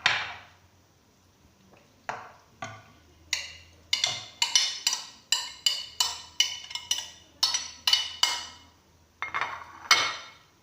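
A serving utensil tapping sharply and repeatedly against a cooking dish as fried green peppers are spooned onto a layer of rice, each tap ringing briefly. The taps are sparse at first, then come about two a second.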